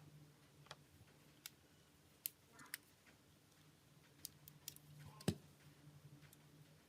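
Scattered small clicks and taps from handling the parts of a Nokia E71 mobile phone and small tools, over a faint low hum. One sharper tap comes about five seconds in.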